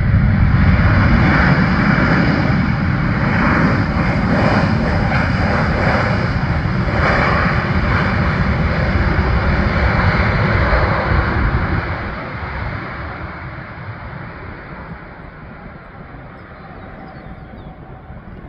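Airbus A320-family airliner's jet engines spooling up to reverse thrust on the landing rollout, loud and steady for about twelve seconds, then dying back toward idle as the aircraft slows on the runway.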